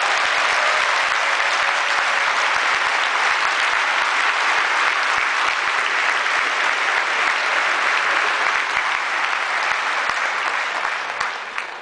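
Large audience applauding steadily in a big hall, the clapping dying away near the end.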